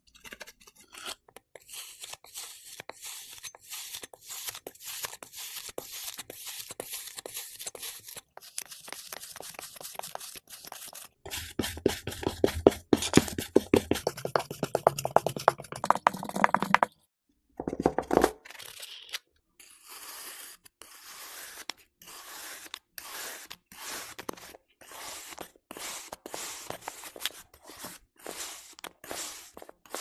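Kinetic sand crunching and crackling as it is pressed and cut with metal tools: a dense run of fine, rapid crackles, loudest and fullest a little past the middle, with a brief pause just after.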